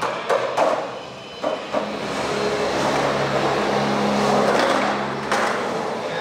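Skateboard on concrete: a few sharp clacks in the first two seconds, then about three seconds of steady wheel rumble, ending in another sharp clack.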